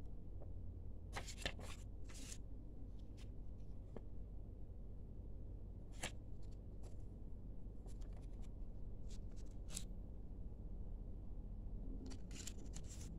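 Paper warranty card and leaflets rustling and flapping as they are flipped through and handled by hand, in short scattered crinkles, over a steady low hum.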